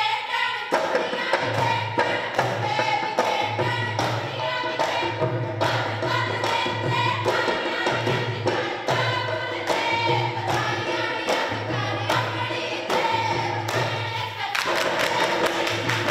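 Group of women singing a Punjabi folk song for giddha, with rhythmic handclapping and a low beat under it. About a second and a half before the end the singing stops and fast, dense clapping carries on alone.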